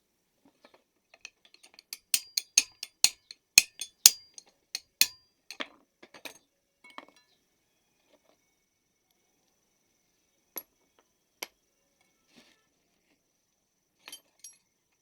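A quick run of sharp clicks and taps from hard parts or tools being handled, about three or four a second, then a few scattered single clicks.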